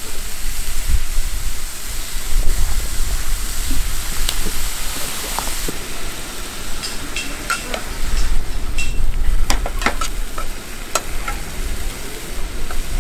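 Mushrooms sizzling as they sauté in a nonstick frying pan on a portable gas stove, a steady hiss. In the second half, tongs stirring them make scattered clicks and scrapes against the pan.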